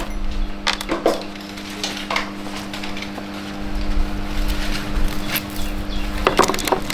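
Scattered knocks and clicks of parts and hand tools being handled during motorbike repair work, over a steady hum.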